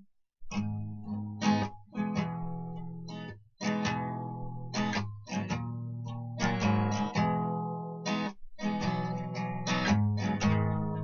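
Acoustic guitar strummed in repeated chords, the opening of a song before the vocals come in.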